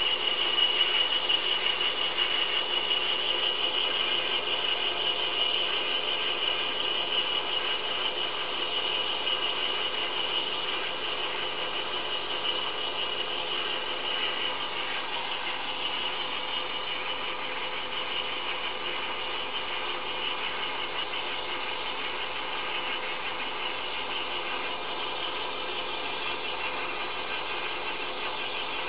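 Einhell BT-ML 300 mini lathe running as it turns a brass rod: a steady mechanical whir with a high squealing tone that is strongest for the first ten seconds or so, then fades.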